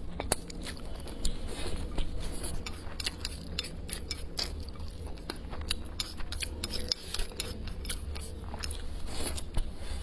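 A person chewing and biting food up close, with many irregular crunchy clicks over a low steady hum.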